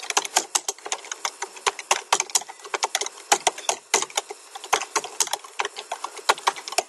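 Typing on a computer keyboard: a quick, uneven run of key clicks, several a second.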